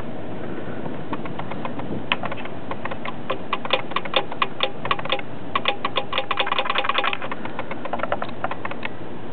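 Metal gears in an open motorcycle engine case clicking as they are moved by hand. There are scattered sharp metallic clicks, then a quick run of them about six seconds in, over a steady hiss.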